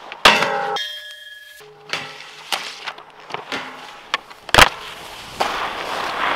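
Skis striking a steel snowpark rail: a sharp clang about a quarter second in leaves the rail ringing with several steady tones for about a second, followed by a series of sharp knocks and scrapes, the loudest about four and a half seconds in. Near the end comes a rushing hiss of skis sliding over snow.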